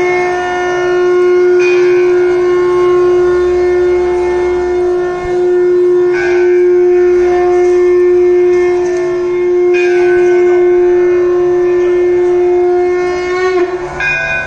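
Conch shell (shankh) blown in one long, steady horn-like tone for the aarti, dipping briefly about five seconds in and again near the end.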